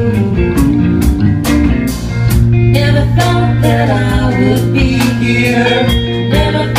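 A band playing a song with singing, guitar and a steady drum beat.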